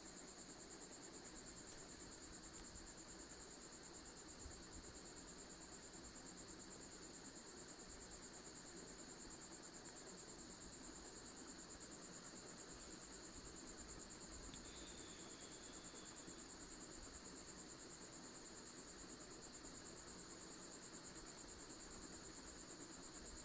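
Near silence, with only a faint, steady high-pitched whine in the background.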